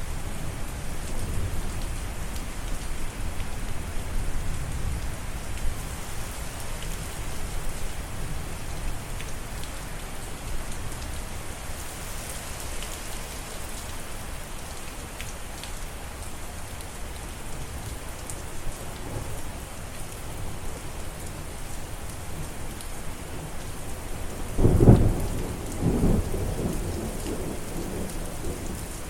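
Steady rain falling, with low rumbles of thunder. A louder thunder crack and rumble comes near the end.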